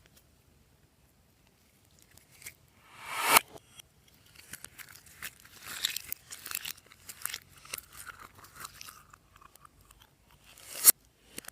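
Glossy slime worked by hand: two squishes that build up and cut off suddenly, with a run of small crackling pops between them.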